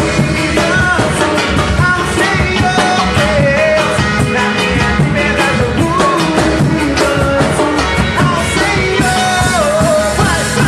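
Worship band rehearsing an upbeat rock-style song, with a steady drum beat under a wavering melody line.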